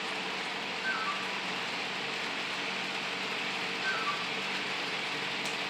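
Sound systems of MTH O gauge model diesel locomotives idling: a steady diesel-idle hiss and hum. A faint short falling chirp comes about every three seconds.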